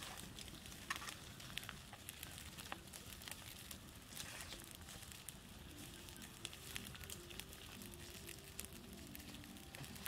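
Open wood campfire burning with frequent sharp crackles and pops.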